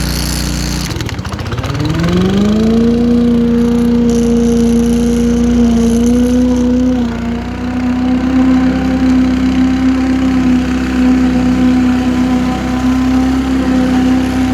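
Rover Pro Cut 750 self-propelled lawn mower's petrol engine running. About a second in its speed dips, then climbs over about two seconds to a steady high running speed, with a small step up about seven seconds in.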